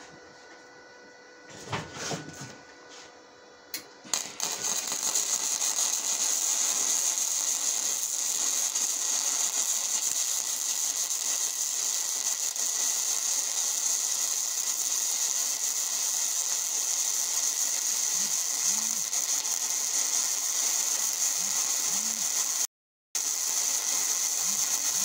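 Aluminum MIG welding arc from a spool gun on a ProStar 140 welder: a steady, crackling hiss that starts about four seconds in as a bead is run, cutting out for a moment near the end.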